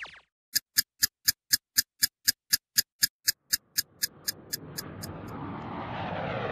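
Steady clock-like ticking sound effect, about four even ticks a second. About four seconds in, a rising swell of noise builds under it, and the ticks fade out as the swell grows louder.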